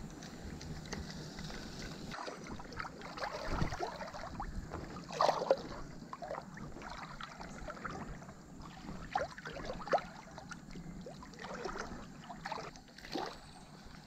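Creek water sloshing and splashing around a wading angler's legs, with a few sharper splashes spread through.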